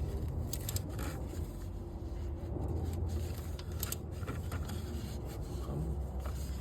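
Ratchet and 10 mm socket loosening a timing-belt tensioner bolt: scraping and rubbing of tool on metal with scattered sharp clicks, over a steady low hum.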